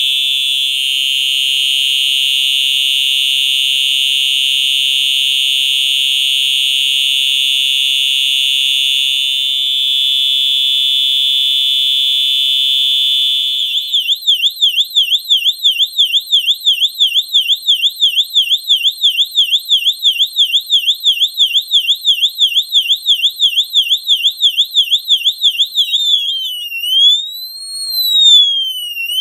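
FCI HES-STW three-tone electronic fire alarm horn sounding its steady, continuous horn tone, then switching about fourteen seconds in to a rapid high-pitched warble, and near the end to a slow rising and falling siren sweep.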